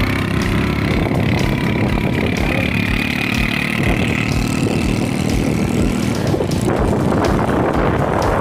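Motorbike engines running steadily on the move, with road and wind rush on the microphone. The rushing noise grows heavier about two-thirds of the way in.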